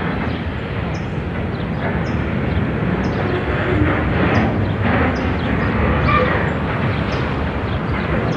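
Freight train of empty open wagons rolling past at low speed, a steady rumble and rattle of the wheels on the rails.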